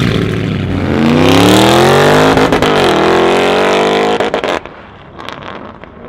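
Lamborghini Urus's twin-turbo V8 through an aftermarket Capristo exhaust at full throttle as the SUV accelerates away, rising in pitch, dipping at an upshift about two and a half seconds in and climbing again. The sound drops away sharply about four and a half seconds in.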